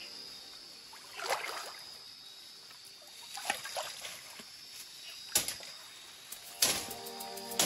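Rubber boots wading through a shallow muddy stream: several splashy steps in the water, with a few sharp clicks in the second half.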